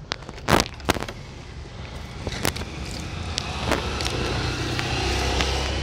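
A car passing on the street, its engine and tyre noise rising over the last few seconds. In the first half, a few sharp cracks as termite-eaten wood is broken away by hand.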